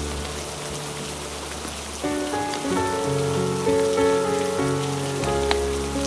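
Steady rain with soft background music of held notes that change every second or so, and a few faint fireplace crackles, one sharper pop about five and a half seconds in.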